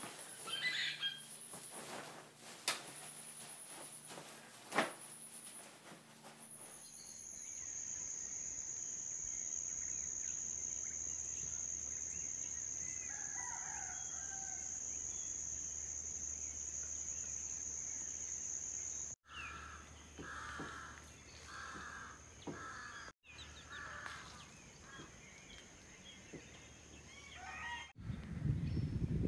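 Rooster crowing and clucking, in short repeated calls and a rising crow near the end. For about twelve seconds before that, a steady high-pitched drone runs on its own. A few knocks and rustles come in the first seconds.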